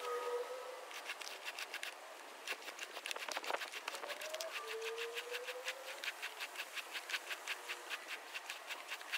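Ridgid sewer camera reel and push cable being worked by hand, with rapid, regular clicking at about five clicks a second that starts about two and a half seconds in.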